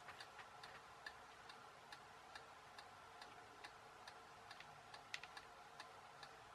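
Near silence: room tone with a faint, regular ticking, a little over two ticks a second.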